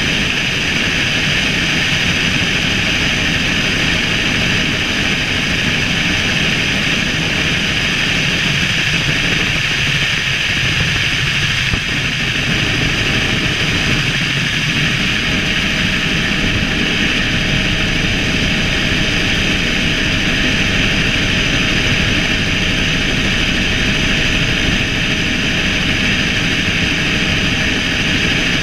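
Helicopter in flight, heard from on board: steady engine and rotor noise with a few constant high tones running through it, unchanging in level.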